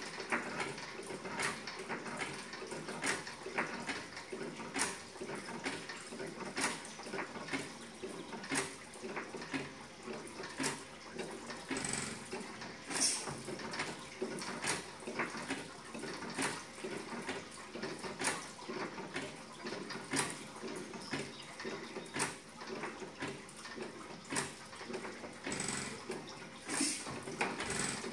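1912 IHC Victor 4 hp hit-and-miss engine running, with a sharp bang about every two seconds between stretches of coasting and a steady clatter of small mechanical clicks from its moving parts. Water trickles through its screen cooler.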